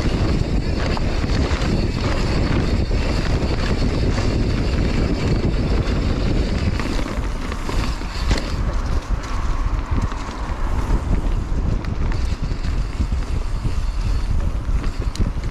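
Mountain bike rolling fast down a dirt trail covered in dry leaves: a steady rush of wind on the microphone with tyre noise and small knocks and rattles from the bike, easing a little about halfway through.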